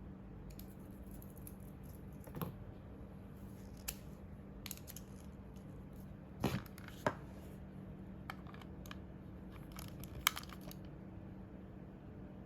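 A computer mouse and its small plastic parts being handled: irregular light clicks and taps, loudest as two knocks about six and a half and seven seconds in and a sharp click near the end, over a steady low hum.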